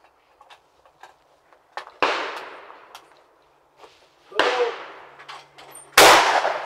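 Shotgun reports: two quieter gunshots with echoing tails about two and four and a half seconds in, then a much louder, heavier shot from the side-by-side hammer gun near the end. A few light clicks come first as the gun is loaded and handled.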